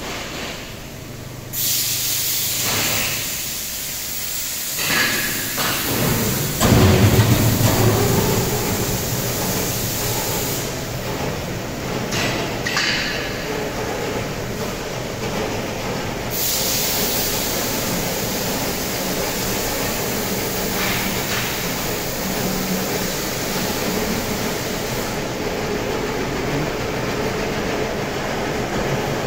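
Steady factory-floor noise: a continuous mechanical hiss and rumble of workshop machinery, with a louder stretch about seven seconds in.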